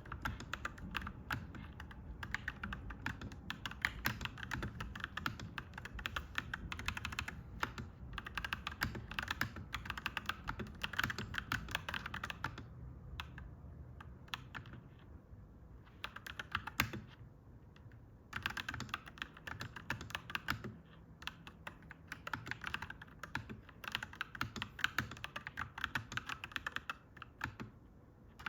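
Clacky mechanical keyboard being typed on in quick runs of keystrokes, with a pause of a few seconds about halfway through and brief breaks later. A low steady hum lies underneath.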